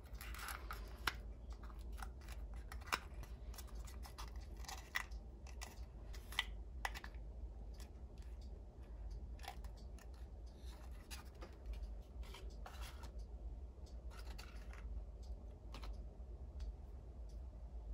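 Small plastic toy pieces of a Hello Kitty bakery playset being handled: irregular clicks and light scratching, with a few sharper taps in the first seven seconds, and sparser handling after that.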